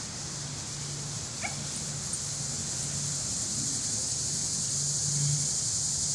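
Mountain Feist squirrel dog vocalizing on the hunt in short, repeated low sounds, over a steady high-pitched insect drone.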